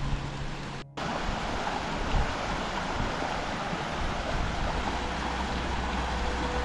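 Rushing mountain stream: a steady, even hiss of running water, with a low rumble of wind on the microphone joining about halfway through.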